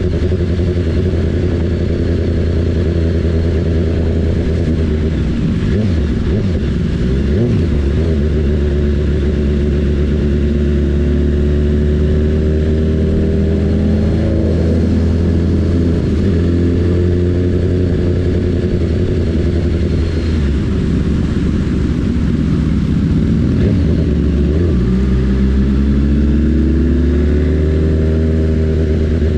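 BMW S1000RR's inline-four engine running under way, its pitch falling and rising with the throttle, and climbing steadily near the end as the bike accelerates.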